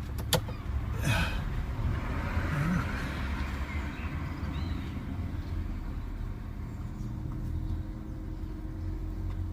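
A newly fitted diesel air heater running with a steady low hum. A couple of sharp clicks sound within the first second or so.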